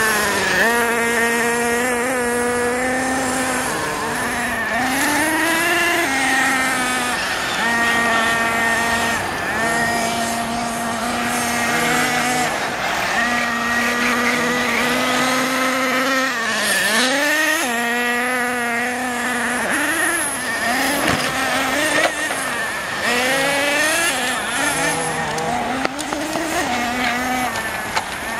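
Radio-controlled model cars' small engines running at high revs, the pitch held steady for a few seconds at a time, then dropping and climbing again as the throttle is let off and opened up. A sharp knock sounds about 22 seconds in.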